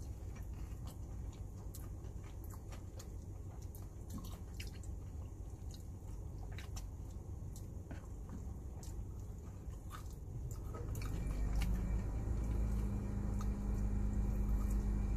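Close-up chewing and wet mouth sounds of eating sauce-coated fried chicken by hand, with many small clicks and smacks. A low steady hum grows louder from about eleven seconds in.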